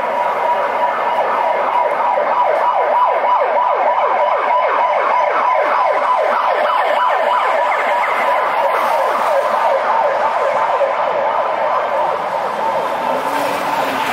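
A siren sounding in a fast yelp, about three to four sweeps a second, that fades out in the second half.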